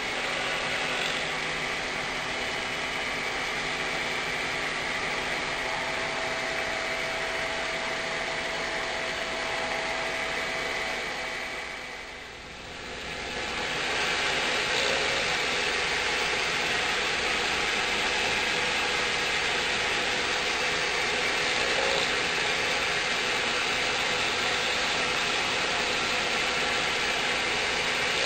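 CNC router running while machining a mold: a steady mechanical whir of spindle and cutting. It dips briefly about twelve seconds in, then comes back slightly louder.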